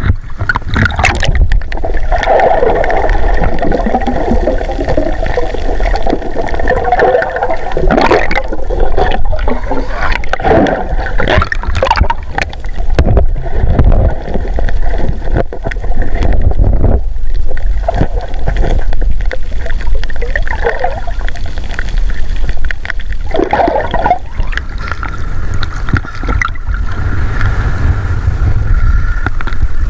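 Sea water sloshing, gurgling and splashing against a waterproof camera as it moves through the surface and under water, with a muffled rumble while it is submerged.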